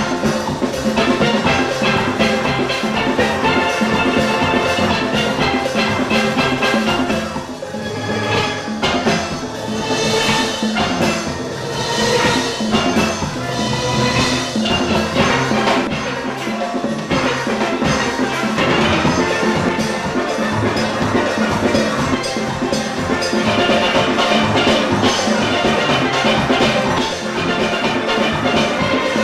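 Steel band playing, with many steelpans carrying the tune over drums and percussion; it eases slightly in volume about seven seconds in.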